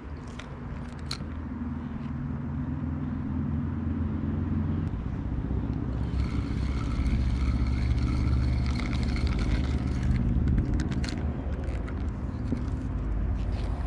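A steady low motor drone that slowly grows louder, with a thin high whine over it from about six to ten seconds in.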